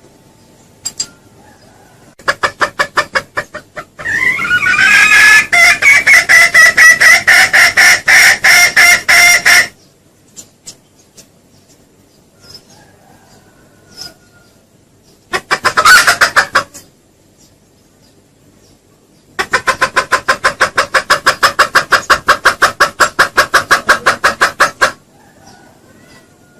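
Junglefowl giving rapid runs of clucks, about eight a second, in four bouts, two brief and two lasting several seconds: the kind of call played as a lure to draw in wild junglefowl.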